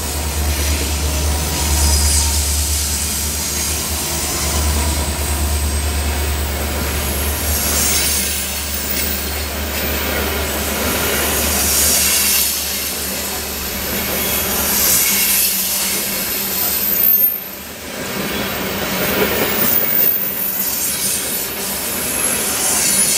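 A Norfolk Southern freight train of SD60E diesel locomotives and coal cars passing close by. The locomotives' low engine rumble fades after the first several seconds, leaving the steady rolling clatter of the coal cars' wheels on the rails with thin high-pitched wheel squeal.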